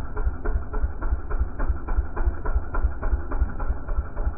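Vehicle engine running at low speed, with an even low pulsing at about five to six beats a second.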